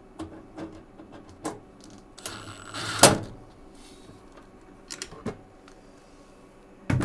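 Cordless drill tightening a ground screw into the sheet-metal back panel of an air handler's control compartment: one short run of about a second that ends in a sharp click. Scattered clicks and taps of handling come before and after, with a louder knock near the end.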